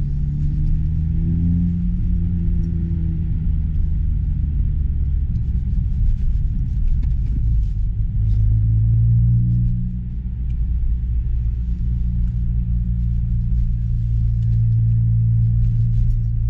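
A car heard from inside the cabin while driving: a steady low rumble of engine and road noise. The engine note wavers in the first few seconds, dips briefly about ten seconds in, then holds steady.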